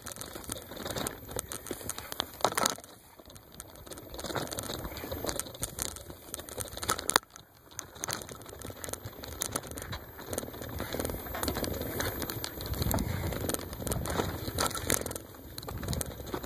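Bicycle ridden over a rough dirt trail: an uneven clatter of sharp clicks, knocks and rattles from the bike and its bungee-strapped load, with crackling as the tyres roll through dry grass and brush.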